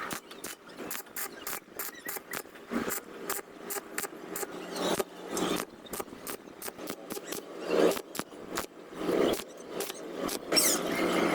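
Irregular mechanical clicking and scraping of hand work on metal parts, with a few louder scrapes in the second half.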